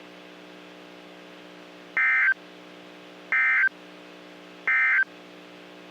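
Three short, identical bursts of Emergency Alert System end-of-message data tones, the warbling digital 'NNNN' code sent three times a little over a second apart, signalling the end of the broadcast tornado warning. A steady low hum runs underneath.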